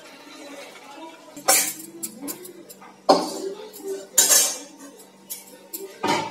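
Stainless steel ladle, kadai and serving bowl clanking and scraping as curry is ladled from the pan into the bowl, with four sharp metal clanks.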